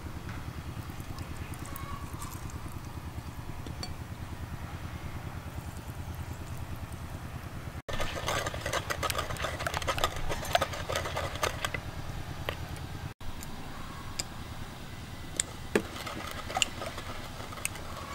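Wooden pestle grinding and tapping a wet sauce in a clay mortar: gritty, sloshing scraping with many clicks about midway, then scattered taps. A steady low engine-like drone runs underneath.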